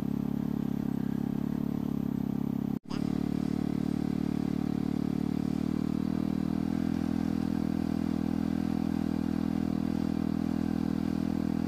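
A vehicle engine running steadily as a low drone that does not change in speed, with no revving. The sound drops out for an instant about three seconds in.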